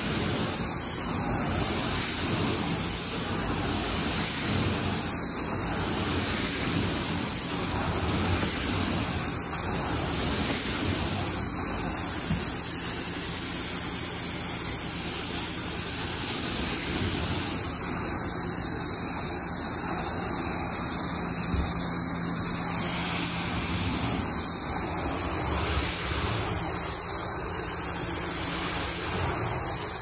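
Carpet-cleaning machine running steadily: an even rushing roar with a faint steady hum under it.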